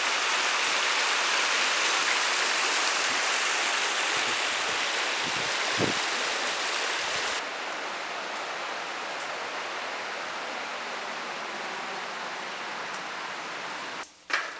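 Rushing stream water, a steady, even rush; about seven seconds in it cuts to a quieter, duller rush of water, and a sharp knock comes just before the end.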